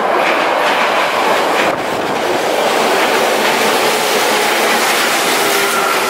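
Tokyo Metro 10000 series electric train running into the station and along the platform, a loud, steady rolling noise of wheels on rail.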